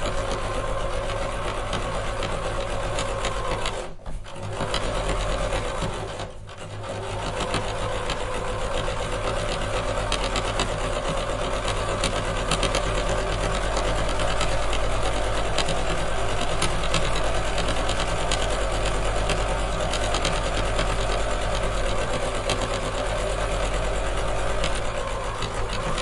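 Sewing machine running with a rapid, steady stitching clatter, stopping briefly twice, about four seconds in and again about six seconds in.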